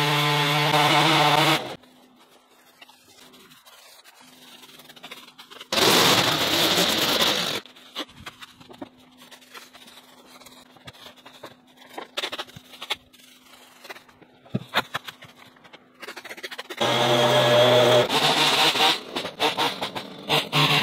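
A power tool's motor running in short bursts that start and stop abruptly: once at the start, and again from about three-quarters of the way through to the end. Between the bursts there is a loud rushing burst of noise lasting about two seconds, then scattered sharp clicks and snaps.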